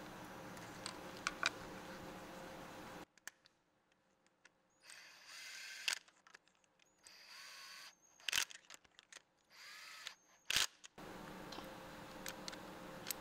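Hand tools working the spark plugs on a Toyota Highlander's 3.3L V6: a plug socket on an extension and a torque wrench give a few sharp metallic clicks, the loudest about 8 and 10 seconds in, with short scraping between them. A low steady background hum sits under the start and the end.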